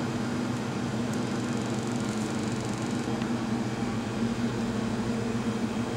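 Steady machine hum of running ice-cream lab equipment, a low drone with a few faint ticks.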